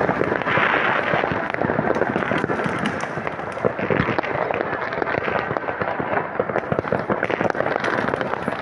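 Fireworks and firecrackers going off in a dense, continuous barrage: many overlapping bangs and crackles with no pause.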